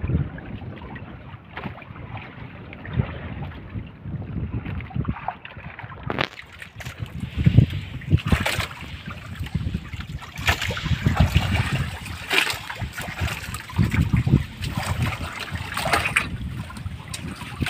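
Wind buffeting the microphone over water splashing and sloshing, with a few sharp knocks or clicks in the second half.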